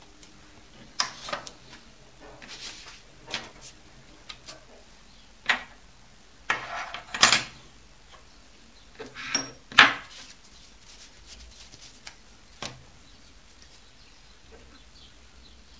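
A spirit level, steel strips and sheets of paper set down one at a time on a wooden workbench: scattered knocks and clatters with paper rustling, the loudest knock about ten seconds in.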